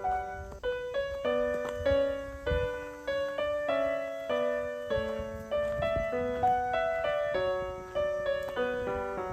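Background music: a piano playing a melody of separate notes, several a second, each fading after it is struck.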